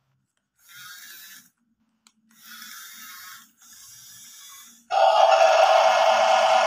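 Small electric motors of a toy remote-control excavator running in three short spells of about a second each, as the arm swings and lifts. About five seconds in, loud background music with synthetic singing starts again and drowns them out.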